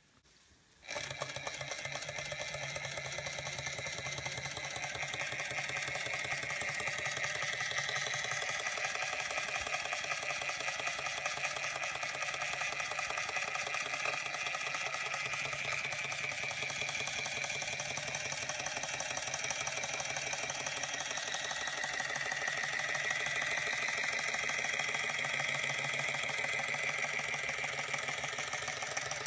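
Georges Carette model 2317 vertical live-steam toy engine running fast under steam: a rapid, even mechanical clatter of exhaust beats and moving parts. It starts about a second in, then runs steadily.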